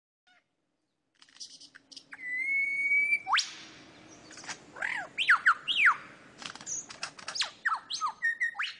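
Eagle-cry sound effect: a long held shrill screech, a sharp rising sweep, then a series of quick falling screeches.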